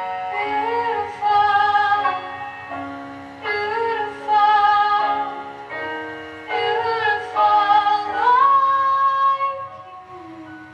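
Music: a woman's voice sings wavering, held notes in three phrases over sustained chords. It fades out near the end.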